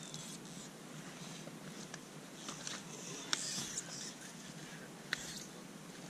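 Faint rustling and scraping, with two sharp clicks, one about three seconds in and one about five seconds in, and no engine running.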